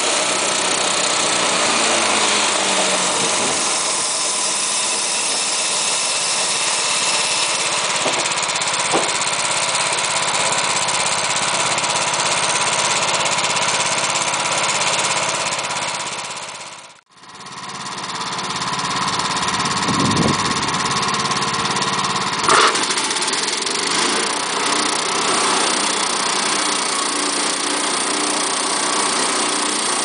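Sawmill running: its engine and saw going steadily. The sound fades out and back in about halfway through, and there is a single sharp knock a few seconds later.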